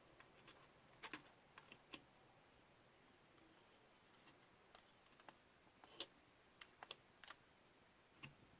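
Faint, irregular clicks and taps of small parts being handled during work on a drone's gimbal camera, a few about a second in and a cluster in the middle and later part, with near silence between.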